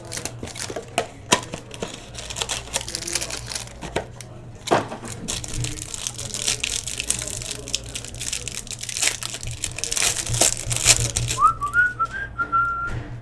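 Trading card pack wrappers being torn open and crinkled, with cards and cardboard handled in quick clicks and taps; the crinkling is densest in the middle. A few short whistled notes come near the end.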